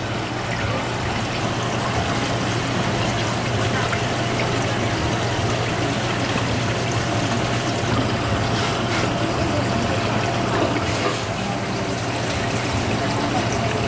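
Water trickling and splashing in a live seafood tank, with a steady pump hum underneath.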